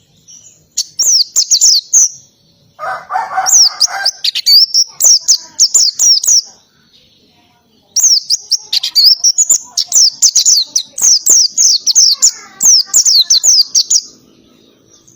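Pleci (white-eye) singing loud runs of rapid, high, downward-sweeping notes in canary-style phrases, in three bursts with short pauses between them. A brief, lower, rough sound comes about three seconds in.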